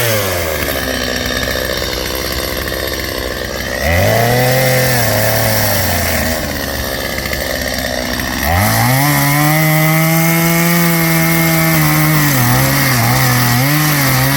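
Chainsaw cutting a felled pine tree, dropping back to a low idle between cuts. It revs up into a short cut about four seconds in, drops back about two seconds later, then revs up into a longer cut from about eight and a half seconds, with brief dips in pitch near the end.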